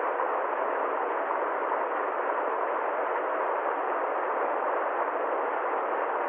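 A constant, even rushing hiss with no tone, rhythm or change, unlike any real machine or place.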